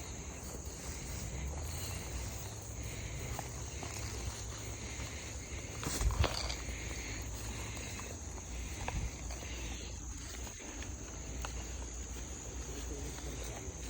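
Steady high insect chirring outdoors, with scattered small clicks and rustles and one louder knock about six seconds in.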